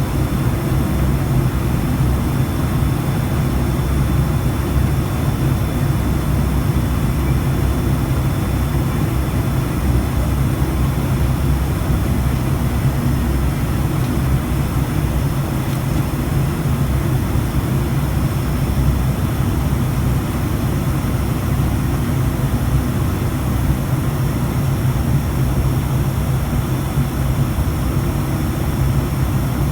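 ATR 72 turboprop engines and propellers running steadily: a heavy, even low rumble with two faint steady high whines above it.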